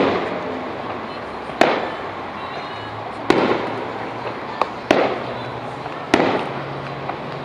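Aerial firework shells bursting overhead: five loud bangs about a second and a half apart, with a smaller pop just before the fourth. Each bang trails off in a rolling echo.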